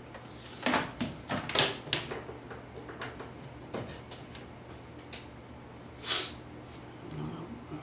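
A scattering of light clicks and knocks from small objects being handled, about nine over several seconds, the busiest run in the first two seconds, over a faint steady hum.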